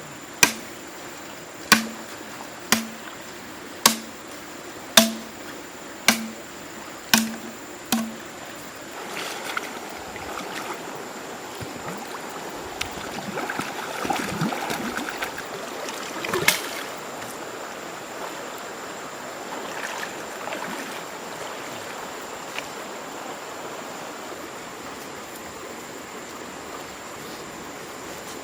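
A tool strikes wood about once a second, eight blows in all, each with a short low ring. Then rustling and handling noise take over, with one more knock partway through, over a steady hiss.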